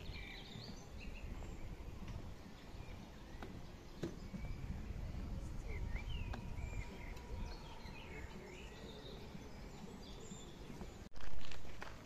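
Outdoor ambience: scattered short bird chirps over a steady low rumbling noise, with a brief loud rushing burst near the end.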